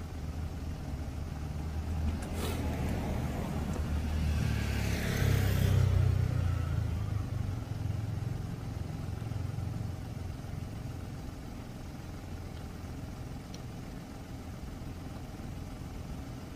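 Steady low motor-vehicle rumble that swells as a vehicle passes, loudest about five to six seconds in, then settles back to a low hum.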